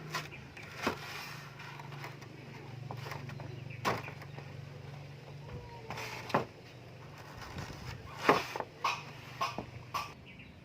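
Scattered knocks and taps during hand work on a knife, about nine at uneven intervals with the loudest about eight seconds in, over a low steady hum.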